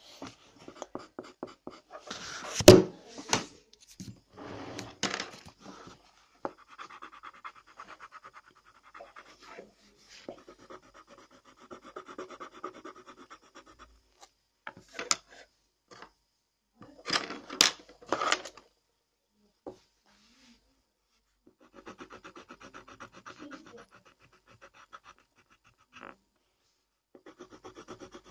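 Pencil scratching on paper in irregular bursts of quick strokes as a drawing is shaded and coloured in. A few sharp knocks are mixed in, the loudest about three seconds in.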